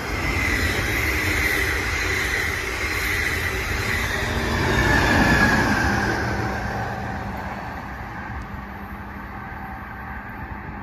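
MARC bilevel commuter train passing close at speed: steady rushing of wheels on rail that builds to its loudest as the locomotive at the rear goes by about five seconds in, then fades as the train moves away.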